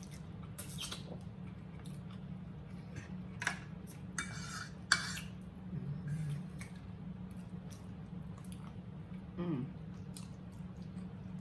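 Scattered clinks and scrapes of forks on plates during a meal, with a few sharp taps about three and a half to five seconds in, over a low steady hum.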